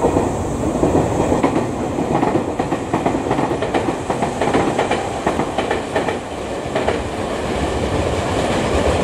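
Trains moving on the station tracks: continuous clatter of steel wheels over rail joints and points with a low rumble, building near the end as a Tobu 250 series limited express approaches.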